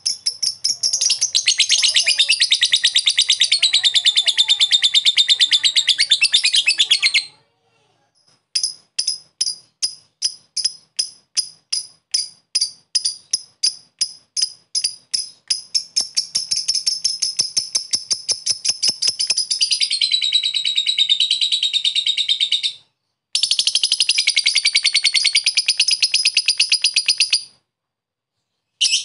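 A blue masked lovebird sings its long chattering song: a dense, rapid high trill that breaks off about seven seconds in. Then come separate sharp ticks at about three a second that quicken and run together into a continuous trill, with two short breaks near the end.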